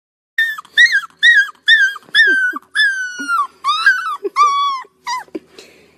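A young puppy howling with its head raised: a run of about ten short, high-pitched yips and little howls, a couple drawn out longer in the middle, some sliding down in pitch at the end.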